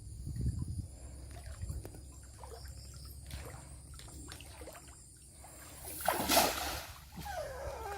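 River water lapping and splashing, with one louder splash about six seconds in.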